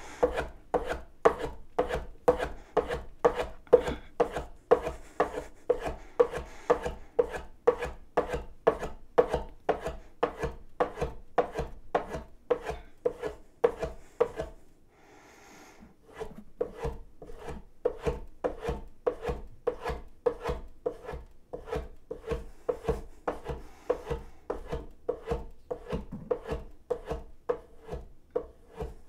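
Steel plane blade drawn back again and again over a strop charged with green polishing compound, in quick, even rubbing strokes with a brief pause about halfway. This is the final stropping that polishes the edge to a mirror finish.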